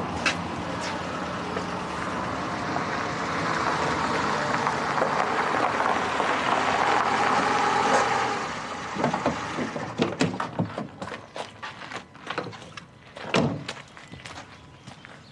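A small hatchback car driving up and pulling to a stop, its running noise cutting off about eight seconds in. Then come short clicks and knocks of the driver getting out and walking, with a loud thump of a car door shutting near the end.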